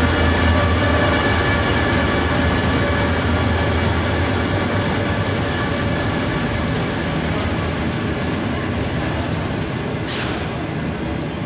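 Diesel-hauled passenger train pulling into the station: a steady low engine hum with the rumble of the carriages rolling past, easing off gradually as it slows. A short burst of hiss about ten seconds in.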